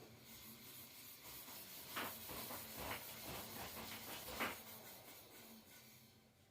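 Rubbing and scraping from the e-bike as it turns stiffly, a part rubbing against it, with a few louder scrapes about two, three and four and a half seconds in.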